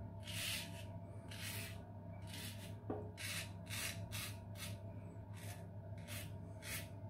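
Razorine Flatboy double-edge safety razor with a Kai blade scraping stubble through lather in short, quick strokes, about two or three a second, on an against-the-grain pass. A steady low hum runs underneath.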